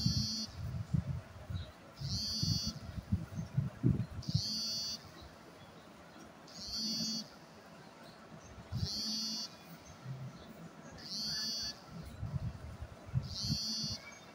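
A high-pitched squeak or call, about half a second long, repeating evenly about every two seconds, seven times in all, with low thumps and rustling in the first few seconds.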